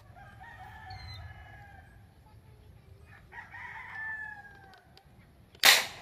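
A rooster crowing twice in the background, then a single sharp rifle shot near the end, the loudest sound.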